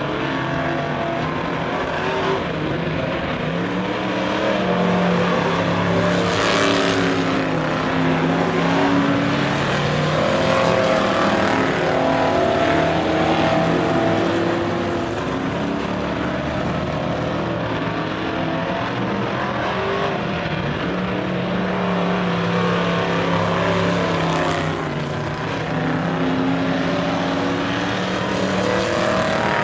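A field of stock cars racing around a short oval track, their engines rising and falling in pitch again and again as the cars pass through the turns and down the straights.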